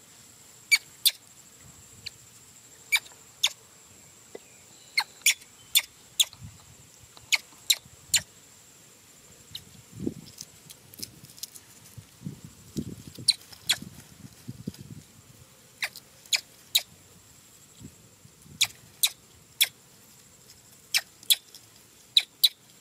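A baby macaque chewing and smacking on small fruit, making sharp, irregular wet clicks, sometimes in quick pairs.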